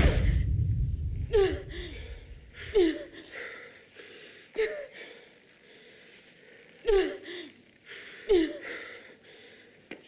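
A woman's pained gasps and whimpering cries, about six short ones spaced a second or so apart, each falling in pitch, coming after a heavy thump at the start.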